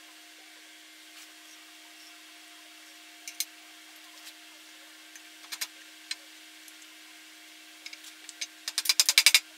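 Scattered light clicks of brass ferrules and wooden handles being handled on a metal drill press table, over a faint steady hum. Near the end comes a quick run of about ten sharp taps in a second, the loudest sound, as a brass ferrule is tapped down onto a wooden handle.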